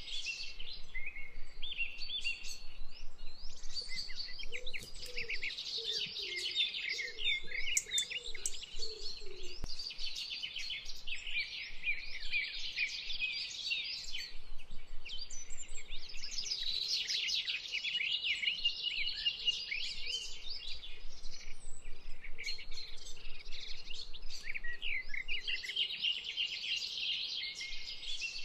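Many small birds chirping and trilling at once in a dense, unbroken chorus.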